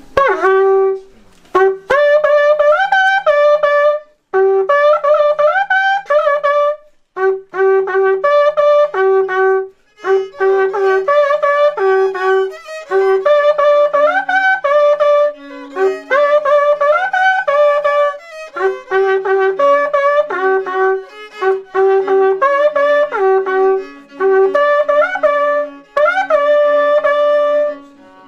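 Wakrapuku, the Andean spiral cow-horn trumpet, playing a melody in short phrases with upward slides between notes. A lower note is held under the tune in places.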